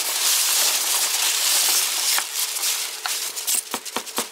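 Foam packing peanuts rustling and crunching as a hand digs through a box full of them, close to the microphone; the continuous rustle breaks into separate crackles near the end.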